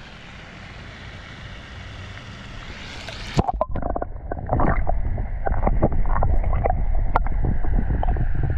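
Water sloshing and hissing at the surface as the camera is lowered in, then about three and a half seconds in the sound turns muffled: a low underwater rumble with scattered knocks and gurgles, heard through a camera submerged in the pond.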